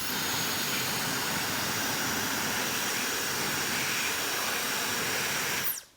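Dyson Supersonic hair dryer running, a steady rush of air with a faint high whine from its motor. Near the end it is switched off: the sound cuts out and the whine sweeps quickly down as the motor spins down.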